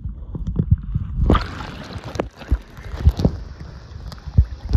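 Water sloshing and gurgling around a camera moving in shallow sea water, with a low rumble and many irregular knocks and bumps from handling the camera.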